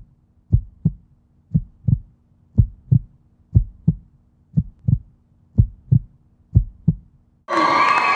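Heartbeat sound effect: low double thumps, lub-dub, repeating about once a second, seven beats in all. About seven seconds in it cuts off and a gym crowd's cheering and shouting breaks in suddenly.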